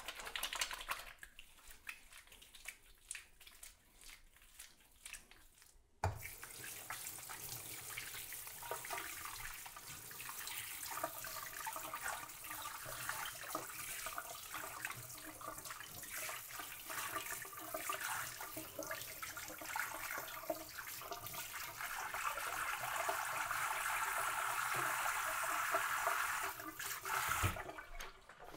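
Tap water running into a sink while hands are washed after handling raw chicken. The tap comes on abruptly about six seconds in and is shut off shortly before the end, with the rush growing louder in the last few seconds. Before it there are only a few faint clicks.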